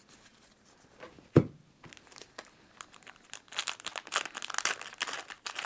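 A single tap about a second and a half in, then from about halfway through a Yu-Gi-Oh Retro Pack booster's foil wrapper being handled and crinkled: a dense run of short, crisp crackles.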